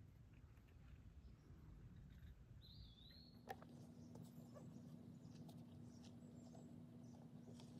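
Near silence: faint forest ambience with a few faint, short bird calls.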